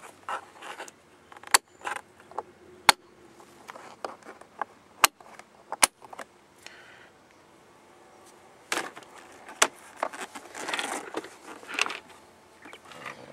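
Several sharp, separate clicks of small chrome toggle switches for a nitrous bottle warmer and purge being flipped by hand, with lighter ticks between them. Rustling handling noise near the end.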